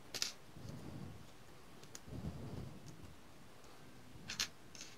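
Small metal alligator clip being handled and set down on a hard tabletop: a few light clicks and taps, the sharpest just after the start and a short cluster near the end, with soft rustling of cloth gloves between.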